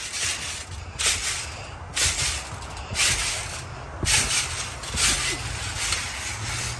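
Trampoline being bounced on: a rushing, rustling swish from the mat with each bounce, about once a second.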